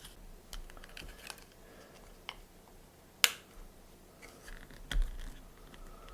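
Scattered small clicks and taps of a headphone driver's plastic parts and tools being handled during disassembly, with one sharp click about three seconds in and a duller knock near five seconds.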